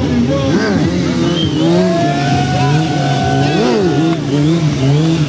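Stunt motorcycle engine revving up and down in quick, repeated blips. Through the middle it holds a long steady high note for about two seconds.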